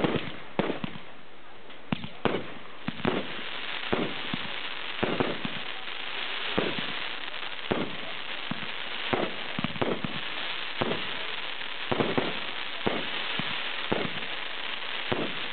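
Aerial fireworks going off in an irregular run of sharp bangs, one or two a second. From about three seconds in, a steady crackling hiss lies under the bangs.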